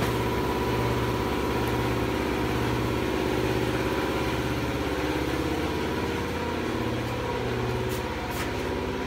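A machine motor running steadily with a low hum and a throb about once a second, with two faint clicks near the end.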